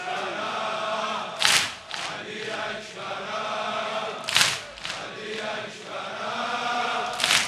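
A crowd of male mourners chanting a noha lament together. A loud collective chest-beat (sineh-zani) strikes three times, about three seconds apart.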